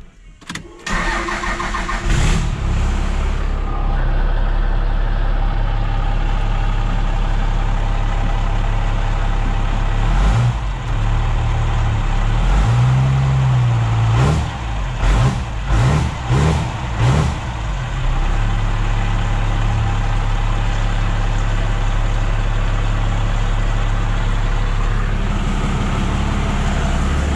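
Freshly installed P-pump Cummins diesel idling, heard from inside the truck's cab. Partway through it is revved: one slower rev up and back down, then several quick throttle blips, before it settles back to a steady idle.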